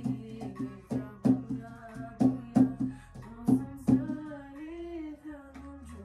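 Live acoustic music: a cajón slapped by hand in a steady beat of about three strikes a second, under a singer's voice. The drumming stops about four seconds in, leaving a held sung note.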